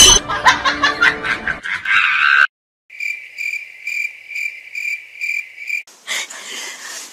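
A high-pitched chirp at one steady pitch, pulsing about three times a second for about three seconds. It is cricket-like, and it follows an abrupt cut to silence. Clicks and knocks come before it, and a scuffle of noise starts near the end.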